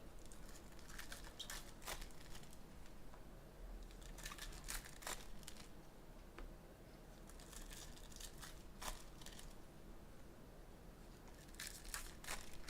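Trading card pack wrappers being torn open and crinkled by hand, in four short, quiet spells of tearing and rustling.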